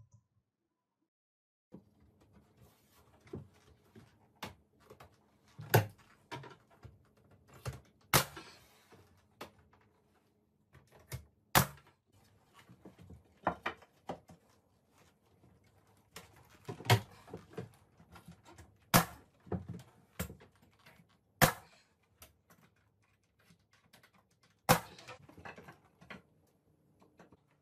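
Pneumatic trim nailer shooting nails through pine face trim into closet shelving: a string of sharp, irregularly spaced shots starting about two seconds in, about seven loud ones among softer knocks of the wood being handled.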